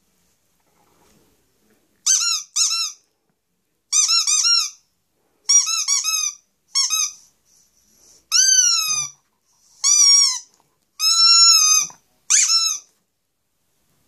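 Squeaky rubber toy ball squeezed by hand, giving a series of high squeaks. They come in quick pairs at first, then as longer drawn-out squeaks.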